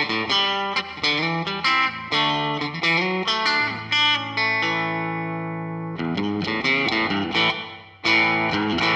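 Electric guitar, a Fender Telecaster through a Fender Blues Junior valve amp, played through the Coldcraft EchoVerberator pedal's room-type reverb with reverb level and dwell at noon. Quick picked notes and chords give way to a chord left to ring out with its reverb tail about halfway through. More picking follows, then a fresh strummed chord near the end.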